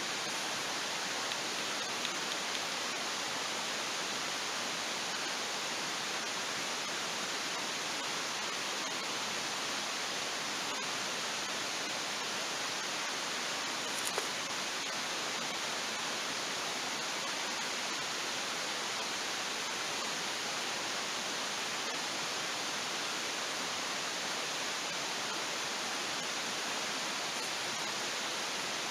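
Steady, even rushing noise with faint pops, a small one about two seconds in and a sharper one about fourteen seconds in.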